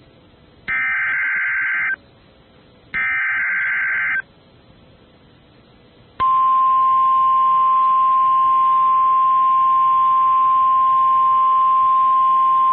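Emergency Alert System SAME header of a National Weather Service warning broadcast: two harsh digital data bursts about a second apart, then after a short gap the steady NOAA Weather Radio warning alarm tone, a single high tone held unbroken. The signal marks the start of an official severe thunderstorm warning.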